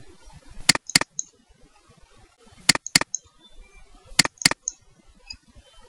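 Computer mouse button double-clicked three times: three pairs of sharp clicks, the two clicks in each pair a fraction of a second apart and the pairs about one and a half to two seconds apart.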